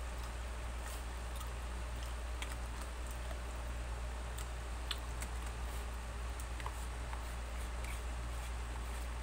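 Light scattered clicks and taps of a plastic spoon and fork working rice in a paper takeout box, over a steady low hum.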